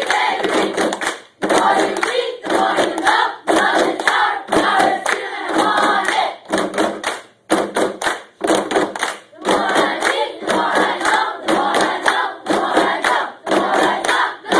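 A group of voices chanting together in a choppy rhythm, with hand claps, and two short breaks.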